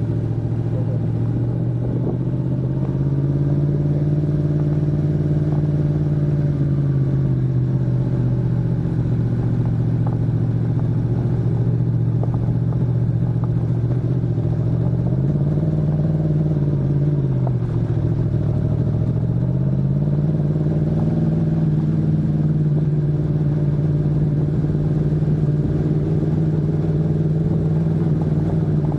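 Yamaha MT-10 SP's crossplane inline-four engine running at low to moderate revs over rough ground. The pitch climbs a few seconds in and eases off, rises and falls again about halfway through, dips briefly, then climbs and holds steady to the end, over a constant low rumble.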